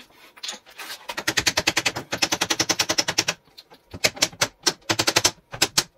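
A hammer tapping on the plastic panels and connectors of a DIY cube shoe rack to seat the joints. A fast run of taps lasts about two seconds, then a few slower, separate blows follow near the end.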